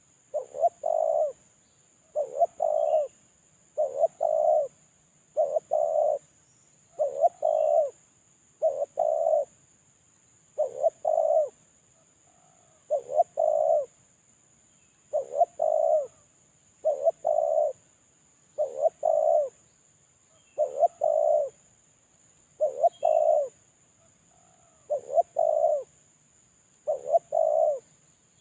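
Spotted dove (terkukur) cooing: a short phrase of a couple of quick notes and a longer coo, repeated about fifteen times at roughly two-second intervals.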